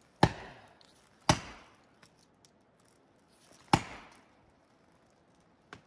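Felling wedges being pounded into the back cut of a big old-growth tree with the back of an axe: three sharp strikes, two about a second apart and a third about two and a half seconds later, then a faint tap near the end. The wedges are going in, lifting the tree toward its fall.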